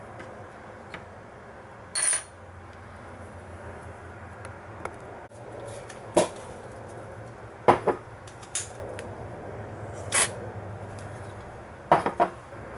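Laptop parts and screws being handled: about six short, sharp clicks and clatters of small hard pieces, two close together near the end, over a steady low hum.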